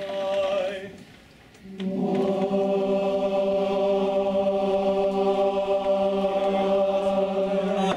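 Barbershop chorus singing a cappella: a short sung note, a brief pause, then from about two seconds in one long sustained chord.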